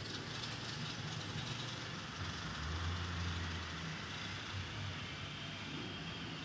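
A silicone spatula stirring and pressing thick semolina dough in a nonstick frying pan, over a steady low rushing background noise that swells slightly in the middle.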